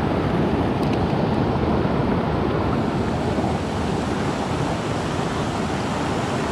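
Mountain creek flowing over a small cascade into a pool: a steady, even rush of water with no breaks.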